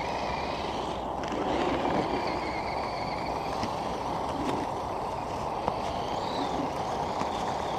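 Electric motor and gears of a radio-controlled scale crawler truck whining as it drives through snow, the whine rising and falling with the throttle over a steady rushing noise.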